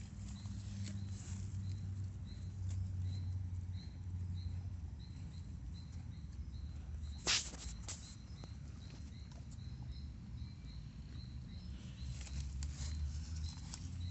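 A horse's stomach growling: low, uneven gut rumbling that swells and fades, with one sharp click a little past the middle.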